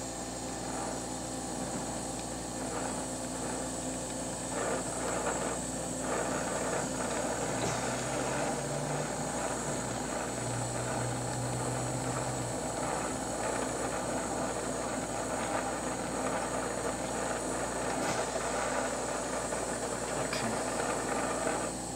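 Glassworking bench torch burning with a steady hiss as the glass is worked in the flame, over a faint low hum.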